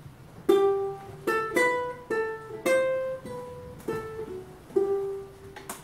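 A ukulele picking a short single-note melody of about nine plucked notes, each ringing and fading before the next.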